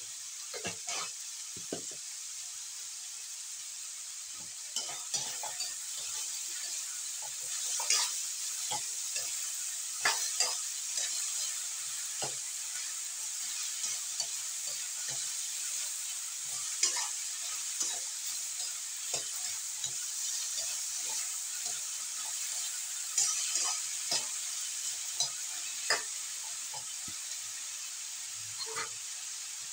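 Sliced bottle gourd sizzling in a metal wok over a gas flame, a steady high hiss, while it is stirred: scattered scrapes and clicks of the utensil against the wok at irregular moments.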